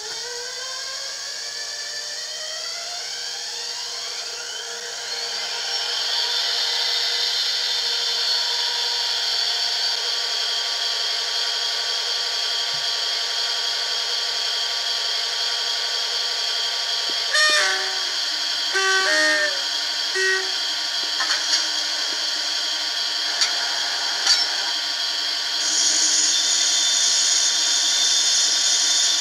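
Sound decoder of a Bachmann OO-scale Class 57 diesel model playing through its small onboard speaker. A rising whine over the first few seconds as the engine starts, then a steady diesel idle. A few short horn blasts come about two-thirds of the way through, and the engine note steps up and gets louder near the end.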